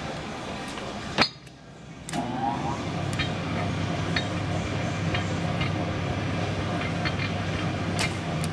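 Hobart P-660 60-quart commercial mixer running with a steady mechanical hum and occasional light clinks. About a second in, a sharp click and the motor goes quiet for about a second. Then it starts up again with a rising whine and settles back into its steady run.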